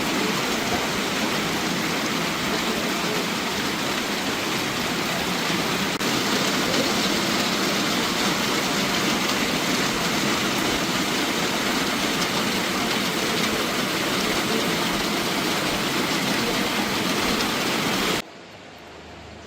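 Rushing floodwater: a steady, dense rush of water noise that cuts off suddenly near the end, leaving a much quieter hiss.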